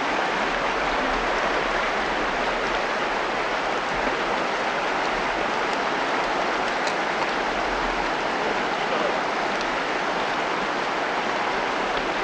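Mountain stream rushing over a rocky riffle: a steady, even hiss of flowing water.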